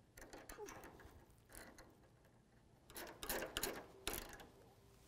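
Wrench tightening a nut onto a stainless-steel bolt on a snow-plow marker bracket: short metal clicks and scrapes, loudest and thickest about three to four seconds in.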